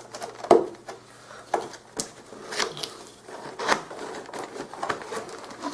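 Cardboard box being opened and its packaging handled: irregular rustling with sharp clicks and crinkles of cardboard and wrapping.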